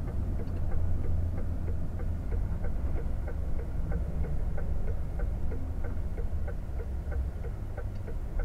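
Turn-signal indicator ticking steadily, about three ticks a second, over the low steady drone of the DAF XF 460 truck's diesel engine and road noise inside the cab.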